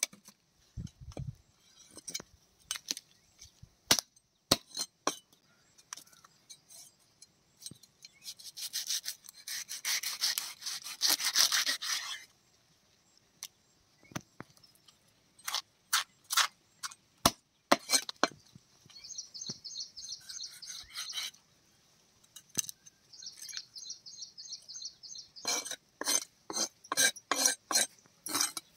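A large knife cutting up a whole tuna on a wooden log chopping block: sharp knocks of the blade striking the wood, a few seconds of continuous scraping as the blade works through flesh and bone, and quick runs of scraping strokes in the second half.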